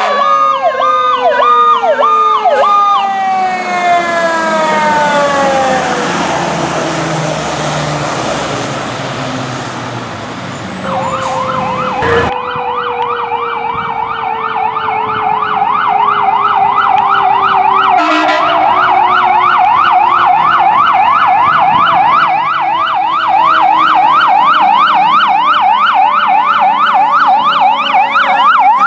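Fire truck sirens over several passes. First an electronic siren changes between yelp and wail, its tones sliding down in pitch as the truck goes by. After a cut, a fast, steady yelp sweeps up and down over the truck's engine.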